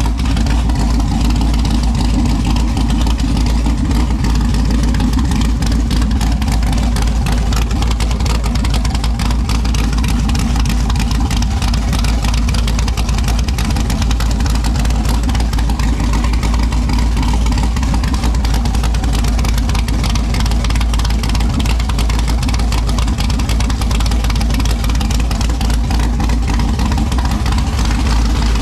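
Texas Speed 416-cubic-inch LS3 V8 on Holley EFI idling loud and steady, freshly started once a cheap crank sensor was swapped for a GM one.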